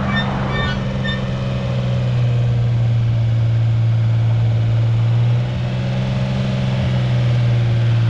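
Vehicle engine running steadily with a constant low hum.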